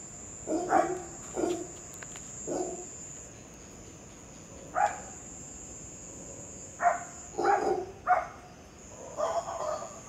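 Monkeys calling from the trees: about ten short calls, some in quick pairs, with a pause of about two seconds partway through, over a steady high whine.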